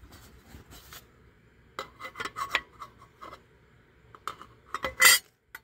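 Handling noise as the metal cover plate is fitted onto a Cadillac air-conditioning power servo: irregular scrapes and light clicks of metal on metal and on cardboard, with a sharper clatter about five seconds in.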